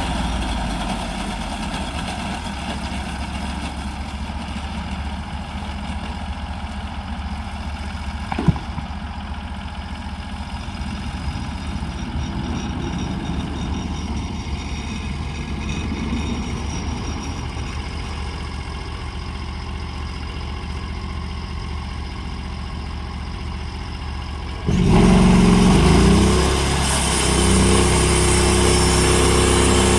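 Sawmill engine running steadily, with one sharp click about eight seconds in; about 25 seconds in it revs up, rising in pitch, and holds steady at the higher, louder speed.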